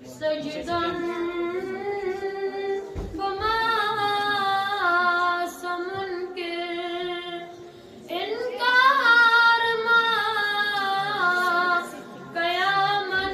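A boy singing a Kashmiri naat, a devotional poem, without instruments: long held, ornamented phrases in a high voice, with short breaths about three, eight and twelve seconds in. The phrase after the second break is louder.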